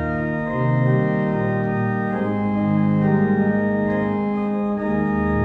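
Organ playing a hymn accompaniment in held chords that change every second or so, without the voice.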